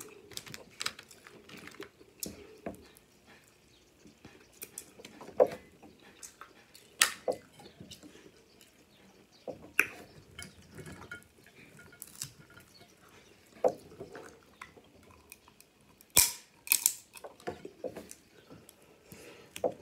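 Snow crab leg shells being cracked and picked apart, with sharp snaps every second or few, the loudest about sixteen seconds in, and soft chewing between them.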